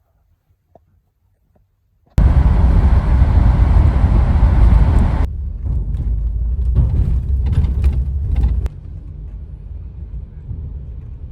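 A sudden loud, low rumbling noise after near silence, like traffic or a vehicle, cutting in about two seconds in and easing in two steps, around five seconds and again near nine seconds.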